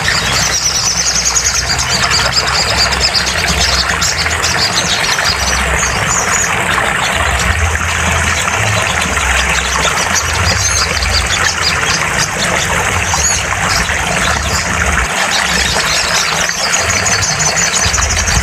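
Sogon (little spiderhunter) song: fast, high, repeated trilling chirps, strongest near the start and again near the end, over a loud steady rumble and hiss.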